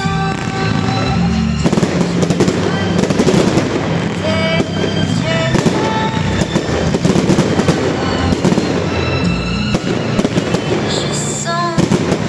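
Fireworks display: a dense, rapid run of bangs and crackles from aerial shells and rockets starting about two seconds in, loud enough to bury the show's accompanying music.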